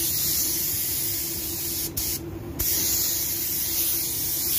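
Paint spray gun hissing steadily as it lays down clearcoat, with two brief breaks about two seconds in where the trigger is let off.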